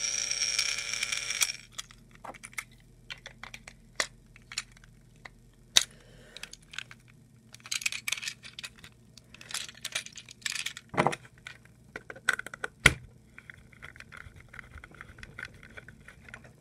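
Plarail Red Rosie battery toy engine running along plastic track with a whirring motor and gears, which stop about a second and a half in. After that come scattered light plastic clicks and taps, with a few sharper knocks.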